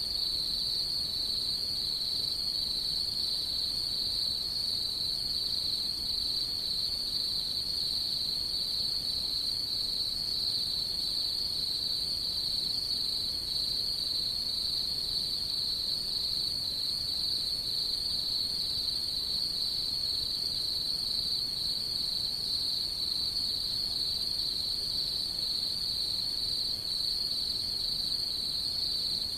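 Chorus of autumn night insects (crickets) trilling: a high-pitched, unbroken ring that holds steady with no pauses.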